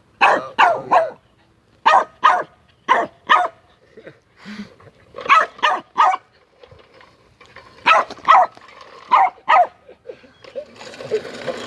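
A small dog barking repeatedly, mostly in quick pairs of barks. Near the end a steady mechanical rattling starts.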